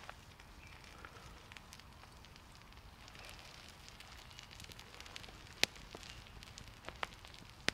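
Small campfire of embers and low flames crackling, with scattered sharp pops; the loudest pop comes a little past halfway, and two more follow close together about a second later.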